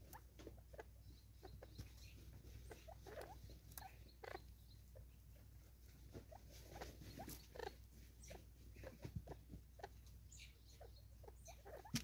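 Spurfowl pecking seed from a cut-down plastic bottle feeder: faint, irregular taps and clicks of the beak on the plastic and the seed, with light scratching.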